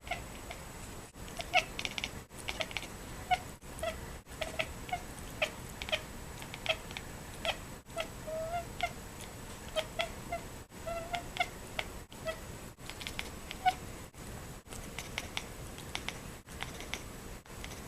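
Domestic cat making a long run of short, clipped chirps and meows with clicks in between, a few a second. The run is broken by brief dropouts into silence about every second.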